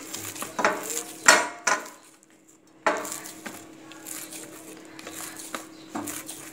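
Dough being kneaded by hand on a steel plate: knocks and clinks of the dough and hand against the metal, loudest a little over a second in. The sound drops away briefly, then starts again abruptly as fainter kneading over a low steady hum.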